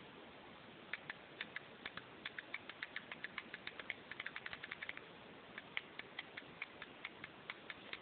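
A microwave-oven door switch clicking rapidly and unevenly, several sharp clicks a second with a short pause about five seconds in, as it is pressed again and again to pulse 12 volts into a microwave oven transformer that strobes a fluorescent tube.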